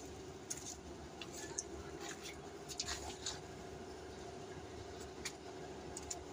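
Faint steady hum with scattered, irregular light clicks and taps.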